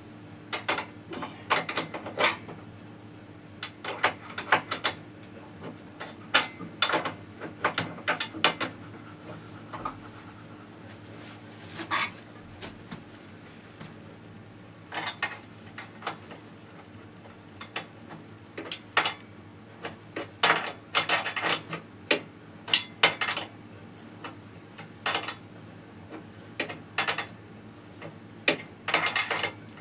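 Hand tools tightening the screws that fix a fence rail to a table saw: irregular sharp metallic clicks and clinks in short clusters, with pauses between, over a steady faint low hum.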